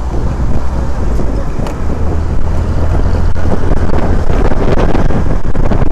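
Wind buffeting the microphone of a moving scooter, a steady low rumble, with the scooter's engine and road noise running underneath.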